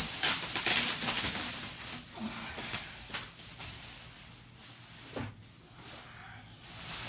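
Plastic packaging wrap rustling and crinkling as a spin bike is handled and pulled free of it. It is loudest in the first second and a half, with a few sharp knocks later on.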